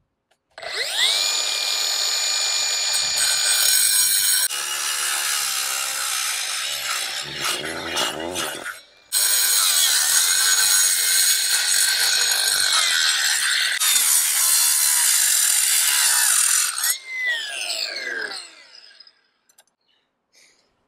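Cordless angle grinder spinning up with a rising whine and cutting into a wall, stopping briefly about halfway through, then cutting again before winding down with a falling whine.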